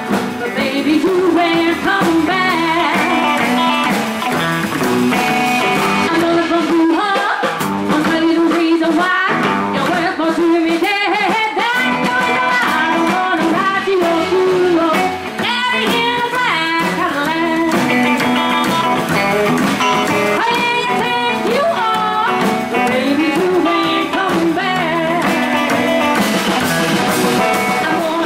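Live rockabilly band playing, a woman singing over strummed acoustic guitar, electric guitar and drums.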